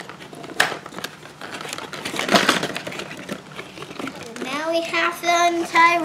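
Cardboard packaging crinkling and scraping as a toy box is pulled open by hand, with a couple of louder scrapes. Near the end a child's voice holds one long note.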